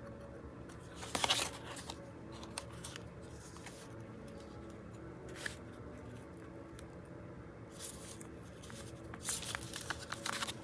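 Paper rustling as a small handmade paper journal is handled and closed: a brief rustle about a second in, another around the middle, and a cluster of rustles near the end, over a faint steady hum.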